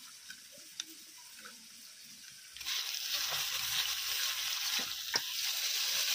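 Faint wet squelching of a hand mixing turmeric-coated small fish in a steel bowl, then, about two and a half seconds in, prawns in hot oil in an iron wok start sizzling loudly and steadily, with a couple of sharp clicks from the metal spatula against the pan.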